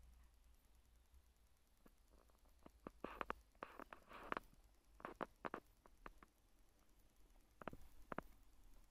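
Near silence with a few faint, irregular clicks and taps, bunched in the middle and again near the end.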